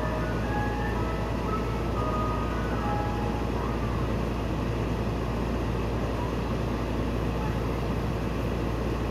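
Mister Softee ice cream truck standing and running with a steady low hum. Its chime jingle plays faintly for the first few seconds, then stops.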